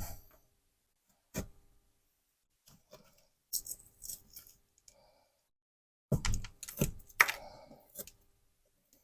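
Drywall face paper being worked loose with a utility knife and peeled off the gypsum: short scrapes and tearing sounds with small clicks, in scattered bursts that are busiest about six to eight seconds in.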